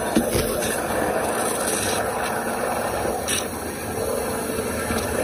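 Waterjet cutter's nozzle cutting a pattern into a slab, a steady rushing noise.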